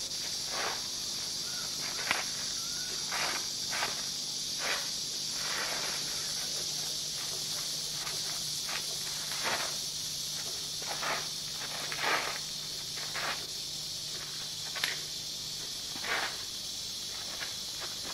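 A martial artist's feet scuffing and stepping on paved ground, with swishes of loose clothing, in short irregular bursts every second or so as he moves through a kung fu form. A steady high hiss runs under it.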